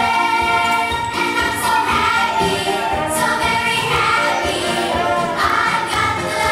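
A song with several voices singing together over instrumental accompaniment.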